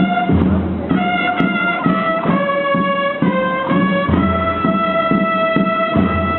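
Procession brass band playing a slow march: long held brass notes moving step by step in a melody, over a steady low beat about twice a second.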